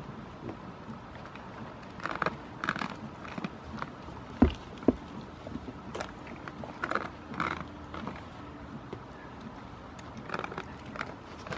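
Goat hooves scraping and clattering on a hard surface in scattered clusters, with two louder thumps about four and a half seconds in.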